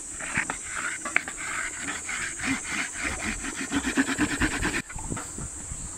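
A fire roll being rolled hard back and forth under a board, a rapid, rhythmic rasping rub that cuts off suddenly near the end. The friction is heating the roll until it smoulders.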